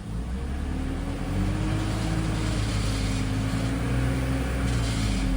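BMW M54 3.0-litre straight-six running steadily at idle. The knock of its cracked torque-converter flexplate is not showing at this speed.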